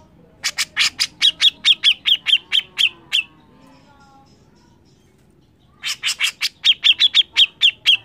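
Grey-cheeked bulbul (cucak jenggot) giving its rapid, shrill 'mbeset' call: two bouts of sharp, downward-hooked notes at about six a second, with a pause of a couple of seconds between them.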